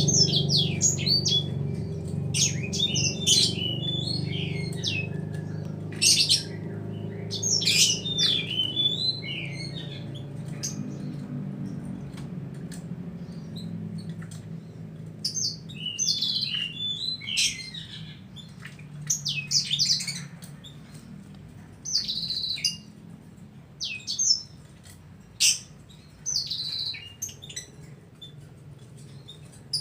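Birdsong: quick, high chirps and twitters in bursts of a second or two, with short pauses between them. Under them, a low steady hum fades away over the first twelve or so seconds.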